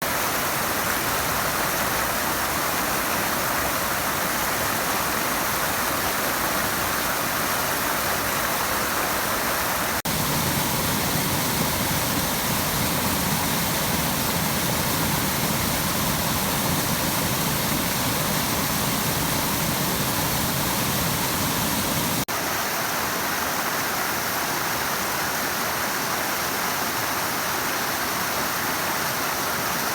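Mountain creek cascades and small waterfalls rushing steadily. The sound of the water changes abruptly twice, the middle part carrying a deeper rumble.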